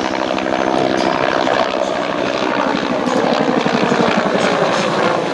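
Bell AH-1 Cobra helicopter making a display pass, its two-bladed main rotor beating in a rapid, even chop over the engine's steady tone, the chop growing stronger after about a second and a half.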